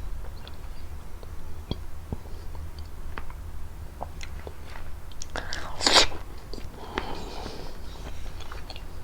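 Close-up mouth sounds of someone biting and chewing prickly pear fruit: wet clicks and crunching of the fruit's hard seeds, with the loudest bite about six seconds in.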